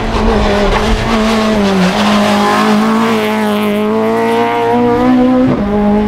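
Citroën Saxo rally car's engine running hard at high revs as the car passes at racing speed. The pitch dips about two seconds in and changes quickly near the end with a gear change.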